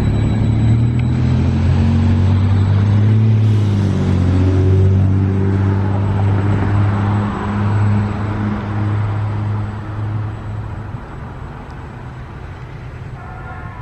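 Container freight train going away as its last wagons roll past, with a low, steady diesel engine drone that fades about eleven seconds in as the train moves off.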